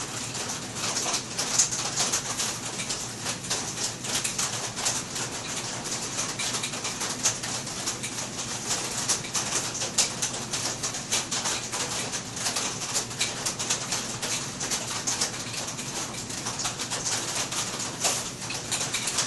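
Two cheetahs purring steadily as they groom each other. Over it runs a dense patter of rain on the roof.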